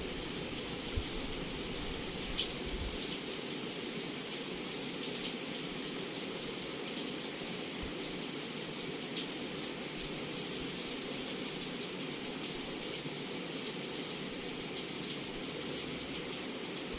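Heavy rain falling steadily, with scattered individual drops ticking against a window pane.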